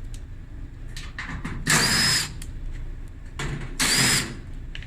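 Power drill run twice, each burst about half a second with a high motor whine, working the screws of a dryer's cabinet panel. Small clicks of handling between the runs.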